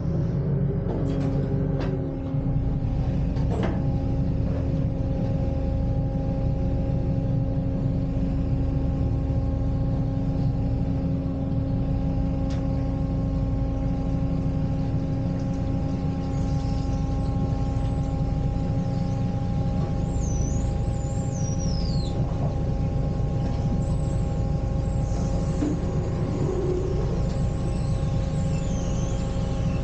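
Narrowboat diesel engine idling steadily, a low rumble with a steady hum over it.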